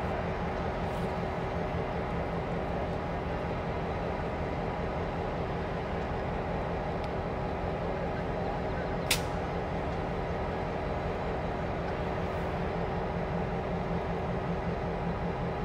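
Stationary EMD F-unit diesel locomotives idling with a steady, even rumble. There is one brief sharp high-pitched sound about nine seconds in.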